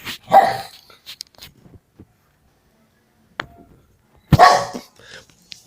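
A dog barks twice: once right at the start and again, loud and sharp, about four seconds later. Near quiet lies between, with a faint click.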